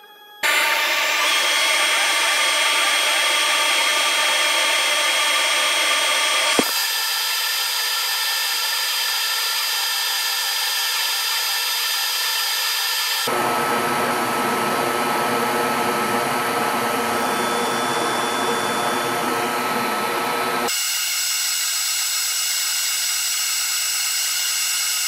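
CNC router spindle spinning up about half a second in, then running at speed with a steady high-pitched whine as a V-bit engraves an aluminum bar. The pitch and tone change abruptly three times.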